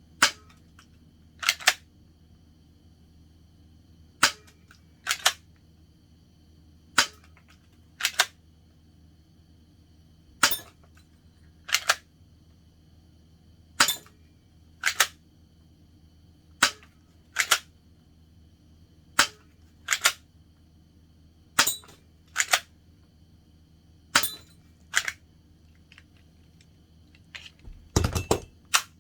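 S2S P99 spring-powered cocking airsoft pistol being cocked and shot over and over: sharp clacks in pairs about a second apart, a new pair every two to three seconds. Near the end comes a denser clatter with a low thump.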